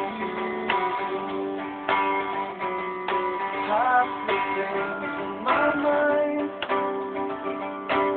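Acoustic guitar strummed in ringing chords, with a strong strum roughly once a second and lighter strokes in between.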